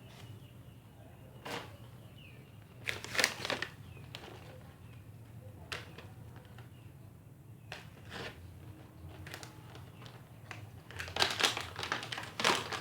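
Plastic toy pieces and packaging being handled, making scattered crinkles and clicks. A quicker run of them comes near the end.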